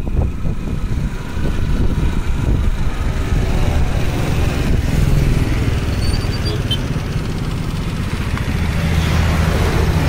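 A motorcycle's engine running at a steady cruise, with wind rushing over the microphone on the moving bike.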